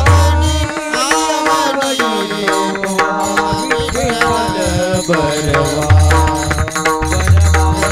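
Marathi kirtan music: a melody over held accompanying tones, with a deep hand drum beating at the start. The drum drops out for several seconds and comes back about six seconds in.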